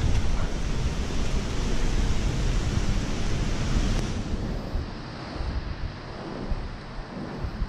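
Wind gusting on the microphone: a rough rushing with a deep rumble, easing about four seconds in.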